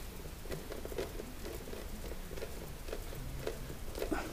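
Fingers pressing the door seal into the groove of a Sub-Zero refrigerator's plastic dairy compartment, making small irregular clicks and rubbing.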